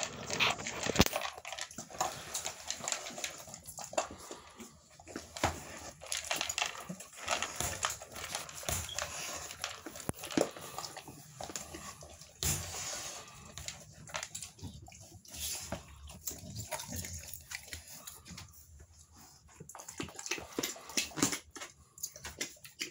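American bully mother dog and her three-week-old puppies moving about in a wire crate: irregular clicks and scuffling, with occasional small dog whimpers.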